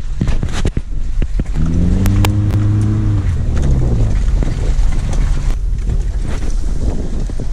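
Off-road SUV engine heard from inside the cab as it pulls along a rough track. It picks up and rises in pitch about one and a half seconds in, then eases off a couple of seconds later. Knocks and rattles of the body over the ruts, with branches brushing along the side, sit over a steady low rumble.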